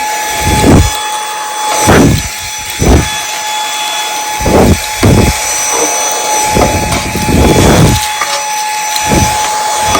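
Dyson V8 Extra cordless handheld vacuum running with its dusting brush on, a steady high motor whine throughout. About eight irregular low surges of rushing air and bumping come and go as the brush is worked over surfaces.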